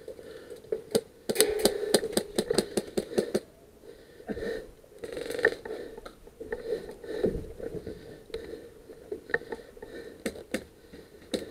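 Airsoft guns firing: a quick string of sharp clicking shots, several a second, from about one to three and a half seconds in, then scattered single shots near the end.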